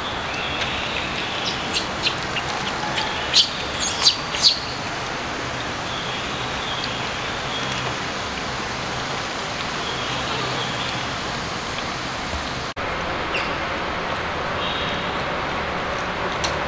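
Steady outdoor background hiss with faint high chirping on and off, and three or four sharp, high chirps or squeaks close together about three and a half to four and a half seconds in.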